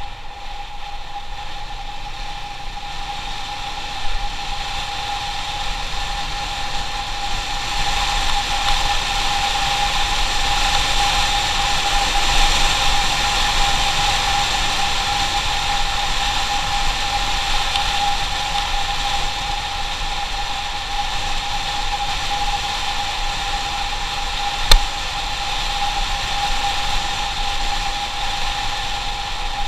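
Motorcycle riding at a steady speed, its engine holding one steady whine under heavy wind rush on the microphone. A sharp knock stands out about 25 seconds in, with a smaller one about 4 seconds in.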